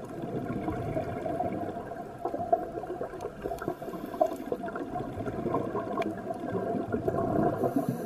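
Underwater scuba breathing through a regulator: a steady bubbling rumble of exhaled air, with a faint hiss of inhalation about every four to five seconds and a few scattered clicks.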